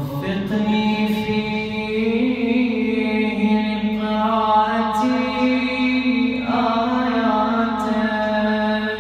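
A man's solo voice chanting an Arabic supplication (du'a) in the melodic recitation style, in long held, ornamented notes. A new phrase begins about two-thirds of the way through.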